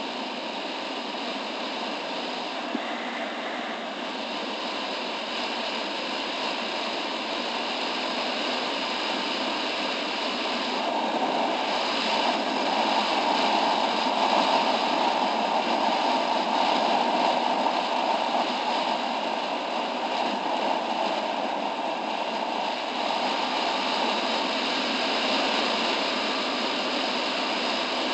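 Steady wind and road rush from riding a motor scooter, with the scooter's engine running underneath; it grows a little louder in the middle, then settles back.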